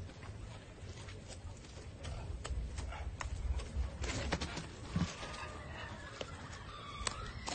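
A beaver moves about with a carrot and lettuce in its mouth, making scattered light clicks. Faint wavering whining calls come about four seconds in and again near the end, over a low rumble.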